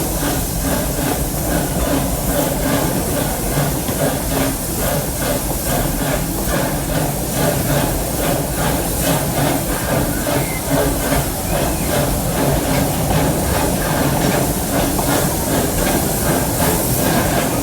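Amusement-park steam train heard from on board: a steady hiss of steam over the low rumble of the train.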